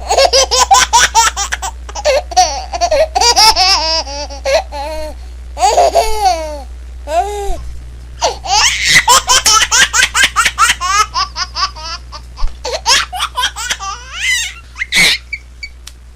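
A baby laughing in several long fits of quick, repeated high-pitched laughs, with short pauses between the fits.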